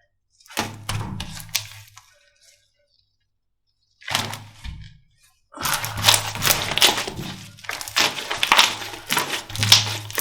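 Slime being pressed and worked by hand, giving crackling and popping clicks: a short burst about half a second in, a brief one around four seconds, then almost continuous crackling from about five and a half seconds on.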